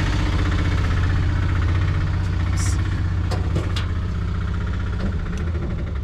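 A tuk-tuk's small engine running steadily, with a few short rattles around the middle.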